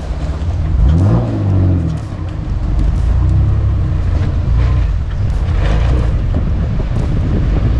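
Four-wheel-drive vehicle's engine revving up briefly about a second in, then pulling steadily under load, with a few light knocks.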